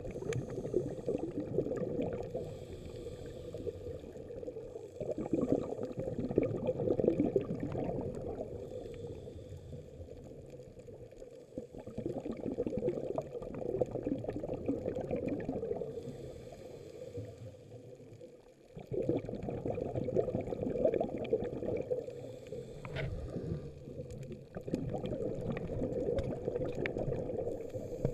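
Scuba diver breathing through a regulator, heard underwater: bubbly, gurgling exhalations swell for a few seconds at a time, with quieter gaps between breaths.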